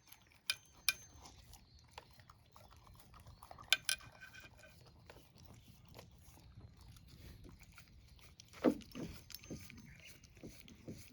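A pet eating its breakfast, with crunching and chewing sounds. The chewing comes in a quick run of strokes in the last few seconds, the loudest just before the end. A few sharp light clicks of the dish come early on.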